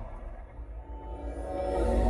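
Cinema intro music and sound effects played through a Ford F-150's Bang & Olufsen surround sound system, heard inside the cab. It starts at a quieter point, then deep bass and several held tones swell back in during the last half second.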